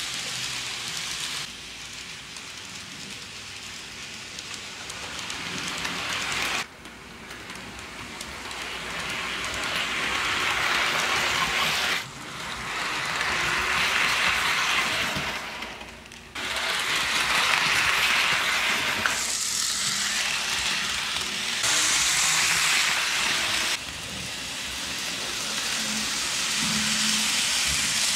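N scale model trains running on sectional track: a steady rolling rattle of small wheels on the rails that swells as a train nears, with the level changing abruptly several times.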